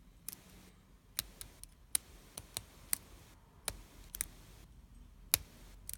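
Sparrows lock pick working the pins of a Yale 125/50 padlock under tension: about a dozen sharp, irregularly spaced clicks.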